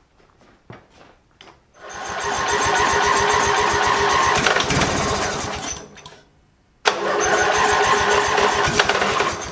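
15 hp lawn tractor engine being cranked by its electric starter in two bursts, about four seconds and then two and a half seconds, without starting. The cranking runs with fast, even compression pulses under a high starter whine, while the carburetor gets no fuel, which the owner puts down to a failed pulse fuel pump.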